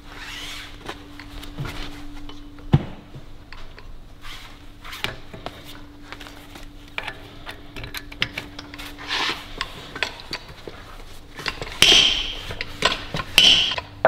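Metal-on-metal clinks and knocks from workshop tools, with a faint steady hum through the first half and louder metallic clanks near the end, as a hydraulic puller presses the rear drive shaft out of the wheel hub.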